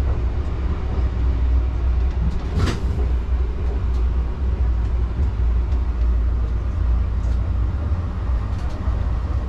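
Steady low rumble of a Renfe Class 112 high-speed train in motion, heard inside the passenger car, with one brief sharp click a little under three seconds in.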